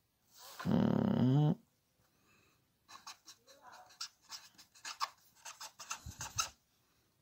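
Felt-tip marker writing block letters on paper: a run of short scratchy strokes through the second half. Before that, about a second in, comes a single loud vocal sound lasting about a second, its pitch bending upward.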